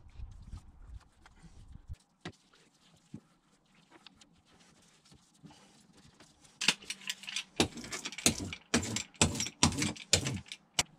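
Paintbrush stroking and dabbing epoxy resin into fiberglass cloth: a few faint clicks, then from about two-thirds of the way in an irregular run of scratchy brush strokes.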